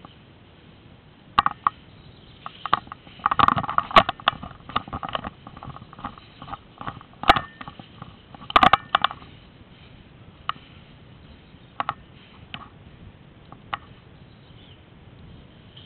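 Close handling noise from someone moving through tall grass: rustling and brushing with irregular sharp clicks and knocks from gear, busiest about three to five seconds in and again near nine seconds, then thinning out.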